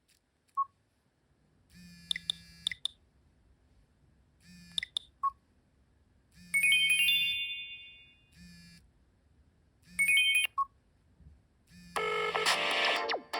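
Stock Nokia 5530 ringtones: sparse short electronic chimes and clicks with soft blips between them, then about a second before the end a loud, dense synthesized melody starts.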